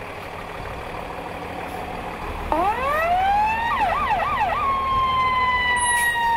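Type 1 fire engine driving off with a low engine rumble. About two and a half seconds in, its siren winds up in a rising wail, breaks into three quick warbles, then holds a long tone that slowly begins to fall.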